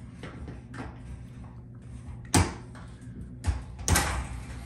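Wire cutters snipping through the fluorescent fixture's ballast leads: a few sharp snips, the loudest about two and a half seconds in and another near the end.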